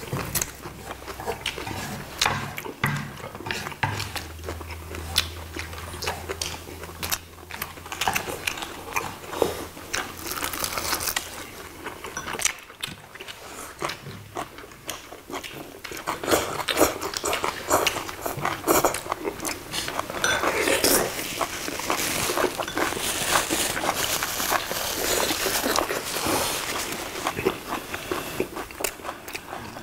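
Close-up eating sounds: chewing and slurping of thin somyeon noodles and braised dried pollack, with many small clicks of chopsticks and mouths. The slurping is densest about two-thirds of the way through.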